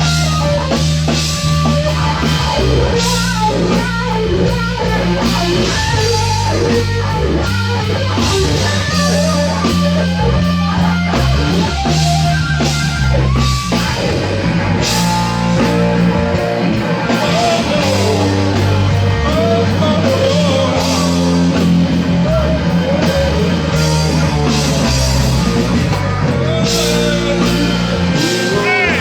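Band playing rock: a bending electric guitar lead over a bass line and drum kit with cymbals.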